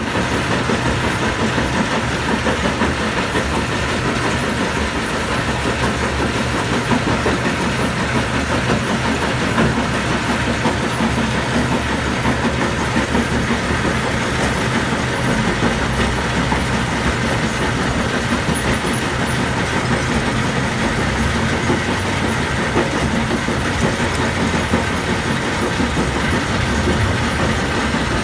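Stone crusher running steadily, its drive engine humming under a continuous loud rattling clatter of machinery.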